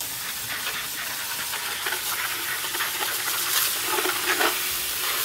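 Garden hose spray nozzle jetting water into a plastic bucket of live blue crabs, a steady hiss and splash that cuts in suddenly, rinsing salt and muck off the crabs.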